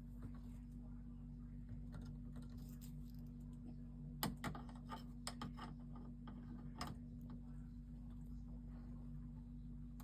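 Faint scattered clicks and taps over a steady low hum, bunched about four to five seconds in and once more near seven seconds.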